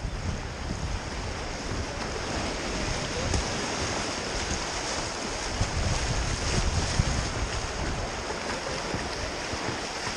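Rushing whitewater of a river rapid, heard close up from a kayak, with wind buffeting the microphone.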